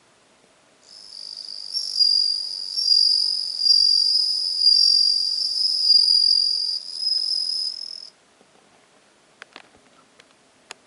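Japanese bell cricket (suzumushi) singing: a high, ringing trill that starts about a second in, runs steadily for about seven seconds and then stops, followed by a few faint clicks.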